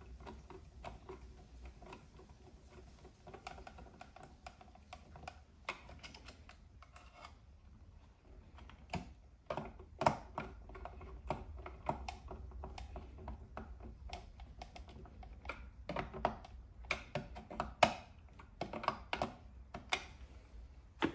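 Irregular small clicks and taps of hands and a small screwdriver working wire ends into the screw terminals of a solar charge controller. The clicks get sharper and closer together in the second half.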